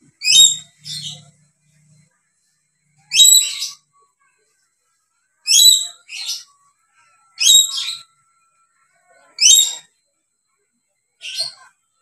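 Dusky lory calling in short, shrill calls, a loud one about every two seconds, several followed quickly by a softer second call.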